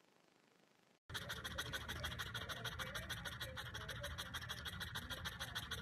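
French bulldog panting fast, a quick, even rasping rhythm of about eight strokes a second that starts abruptly about a second in.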